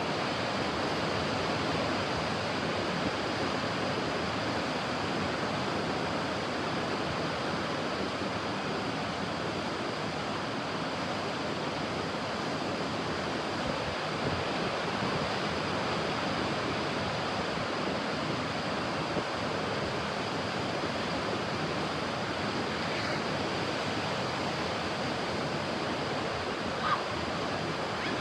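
Ocean surf washing on a beach, a steady, even rush of waves.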